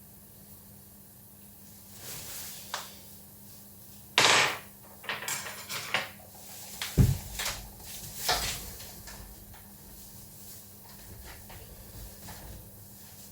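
Clicks, rattles and knocks of a bicycle's rear wheel and axle being handled during an axle swap, with a deep thump about seven seconds in and fainter ticks after.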